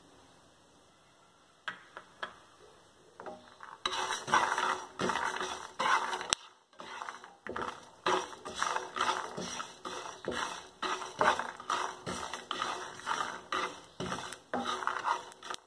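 Groundnuts and sesame seeds dry-roasting in a pan. It is quiet at first, with a few scattered clicks. From about four seconds in comes a dense, irregular rattle of small clicks.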